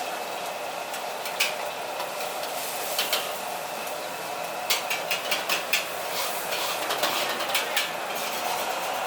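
Metal spatula clanking and scraping against a wok while green vegetables stir-fry over high heat, under a steady sizzling hiss. The clanks come singly at first, then in a quick run of about six strikes around five seconds in, then twice more near the end.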